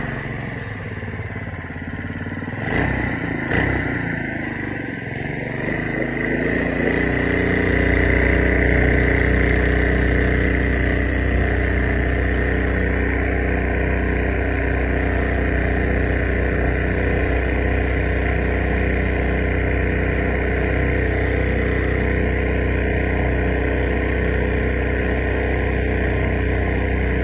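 Predator 212cc single-cylinder four-stroke engine running a long-tail mud motor on a boat under way. About six seconds in it speeds up, then holds steady at the higher, louder speed. Two knocks sound about three seconds in.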